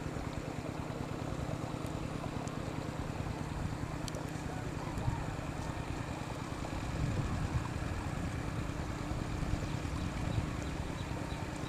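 Wind buffeting the microphone: a steady low rumble, with a faint steady hum underneath.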